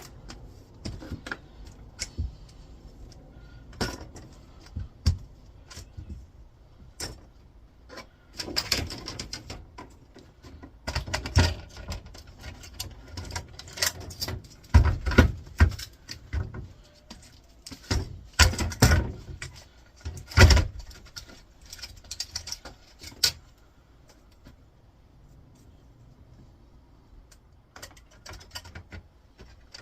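Irregular knocks, clicks and clatter of flatscreen monitor parts being handled, as the plastic casing is fitted back together; the hardest knocks bunch together in the middle, then it goes quiet for a few seconds near the end.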